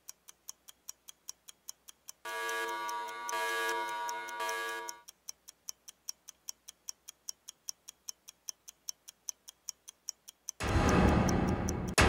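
Clock ticking, about four to five ticks a second. From about two to five seconds in, a sustained pitched tone sounds over it. About ten and a half seconds in, a loud rushing noise starts suddenly.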